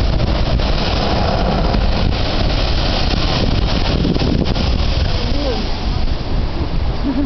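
Heavy wind buffeting the microphone over the rush of surf and the Spouting Horn blowhole blasting seawater spray up through the lava shelf. The hissing of the spray is strongest in the first few seconds.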